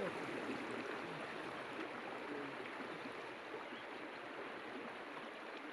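Steady, even outdoor background hiss, easing slightly toward the end, with no distinct events.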